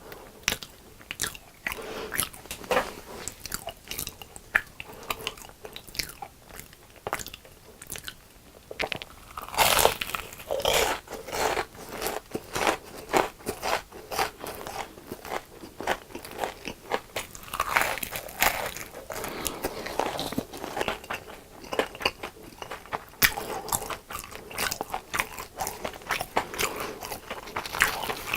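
Biting and chewing crunchy fried food: a long run of crisp crunches, with heavier clusters of crunching about ten seconds in and again around eighteen seconds.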